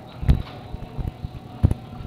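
Two dull thumps of a handheld phone microphone being jostled as its carrier walks, over a faint steady hum.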